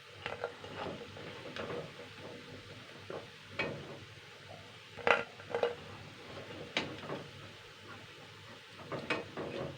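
Metal spatula clinking and scraping against a kadai as fried fuluri are lifted out of the oil onto a plate, a dozen or so separate knocks with the sharpest about five seconds in. Faint sizzling of the frying oil runs underneath.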